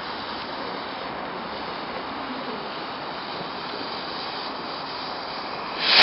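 A steady hiss, then near the end a sudden loud whoosh as a firework rocket launches.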